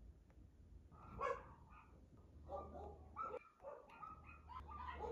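A dog barking, several short barks and yips from about a second in.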